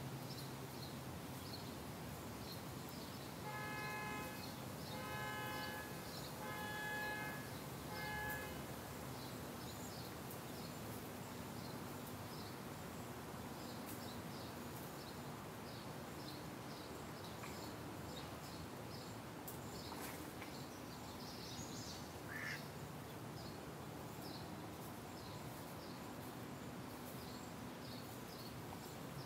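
Outdoor woodland ambience: a faint, steady run of high ticks, and about four seconds in, four drawn-out nasal honks, each under a second long and about a second and a half apart.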